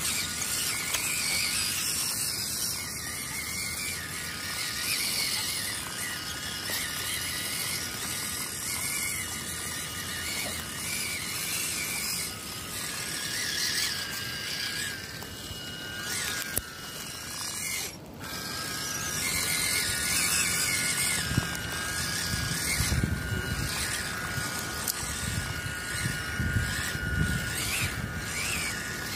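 WPL C14 RC truck's small electric motor and gearbox whining as it crawls, the pitch wavering up and down with the throttle. Low rumbles and thumps come in during the last several seconds.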